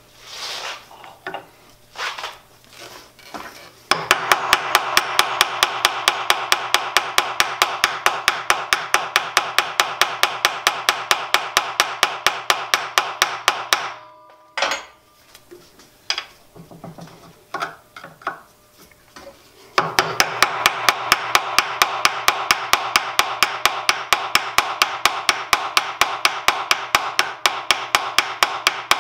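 Rapid, even metal tapping, about five strikes a second, on a screwdriver wedged behind the stuck spindle handwheel of a Jet JWL-1642EVS lathe to drive the wheel off, with metallic ringing between strikes. It comes in two runs of about ten seconds each, the second starting about two-thirds of the way in. Scattered knocks and scrapes come at the start and in the pause between the runs.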